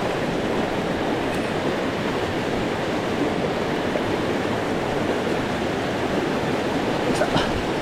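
Mountain stream water rushing steadily over rocks, with a few faint clicks about seven seconds in.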